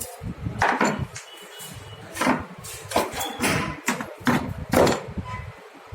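Irregular plastic knocks and clacks from an Epson ink tank printer's housing parts being handled and pulled apart, about seven sharp strikes spread over a few seconds.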